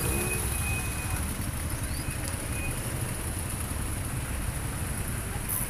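Cars in a slow-moving motorcade rolling past close by, their engines and tyres giving a steady low rumble.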